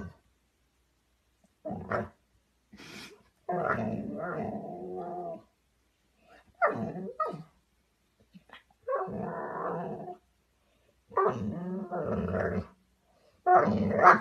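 Young golden retriever growling and barking at its own reflection in a mirror, in about six separate bouts with pauses between, some drawn-out growls and some short sharp barks, the loudest near the end.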